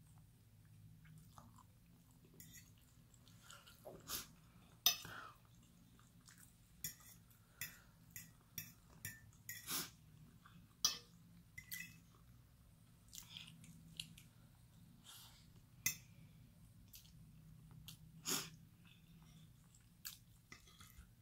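A person chewing and eating soft food, with irregular wet mouth clicks and smacks, and now and then a fork touching the plate.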